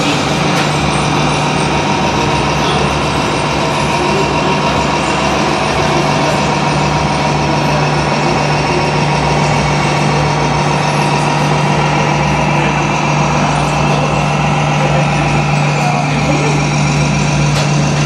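Steady diesel-truck engine drone from a radio-controlled Tamiya MAN truck's sound unit as the loaded model drives, over a continuous hubbub of voices.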